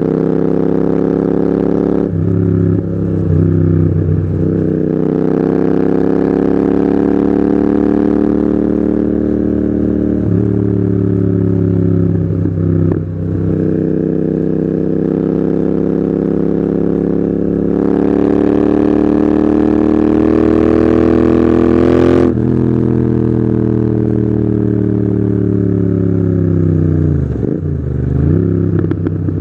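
Royal Enfield Continental GT 650's parallel-twin engine through a loud Red Rooster aftermarket exhaust, pulling through the gears under way. The pitch climbs steadily and drops at each upshift, with one sharp drop about three quarters through and a quick dip and recovery near the end.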